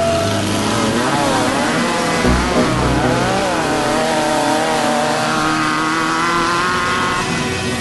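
Off-road race vehicle engine revving up and down several times.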